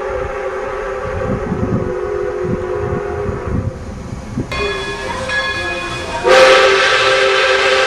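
Steam whistle of Pere Marquette 1225, a 2-8-4 Berkshire steam locomotive, blowing long held chords. The tone changes about halfway through, then the whistle comes in much louder with a lot of hiss near the end.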